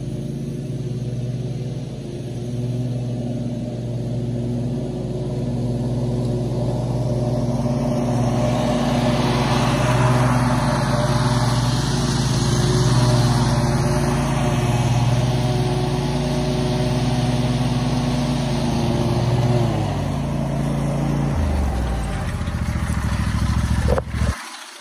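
Simplicity Courier zero-turn mower's engine running steadily as it mows with its blades turning, getting louder as it passes near. The engine pitch drops a few seconds before the end as the mower pulls up close, and the sound then cuts off.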